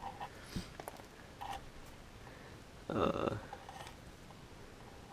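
Faint metal clicks and handling noises from work on a small four-stroke dirt-bike engine's cam sprocket and timing chain, with a louder short scuffing noise about three seconds in.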